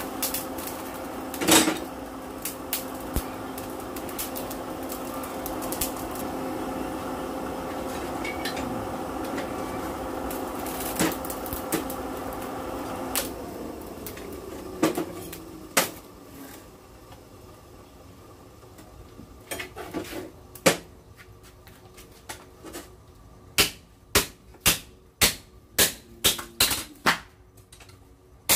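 A forge blower hums steadily over a charcoal fire, with scattered clinks of tongs and tools, and stops about halfway through. In the last few seconds a hand hammer strikes a hot bearing-steel knife blade on the anvil in a steady rhythm, about two blows a second.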